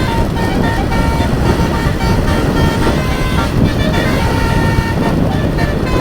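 Telolet multi-tone bus horn playing a melody of short notes that change pitch in steps, over a loud low engine and traffic rumble.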